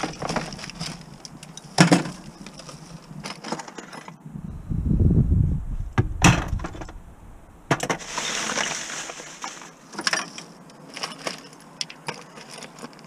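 Small scrap parts being handled and tossed into buckets while sorting: a series of clinks and clattering knocks, with a dull low bump about five seconds in and a rustling rattle of loose pieces about eight seconds in.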